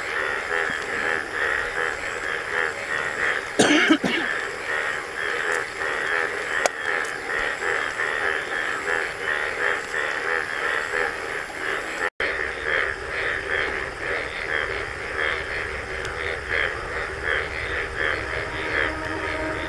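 Forest ambience: a steady, fast-pulsing chorus, with a short loud noise about three and a half seconds in and the sound cutting out for an instant about twelve seconds in.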